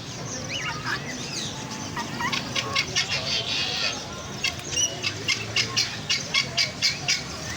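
Several caged birds of mixed kinds calling and chirping, with short gliding calls at first and then a run of quick, sharp repeated calls, about four a second, in the second half.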